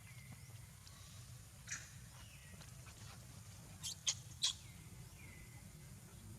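Brief high-pitched animal chirps, loudest in a quick cluster about four seconds in, and a couple of calls that slide down in pitch and level off. Under them runs a steady low rumble.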